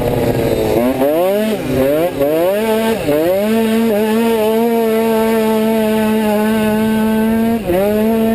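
Automatic scooter's two-stroke engine racing, heard from the rider's helmet camera. The revs drop and climb a few times in the first three seconds as the throttle is closed and opened, then hold at a steady high pitch under full throttle, with one short dip near the end.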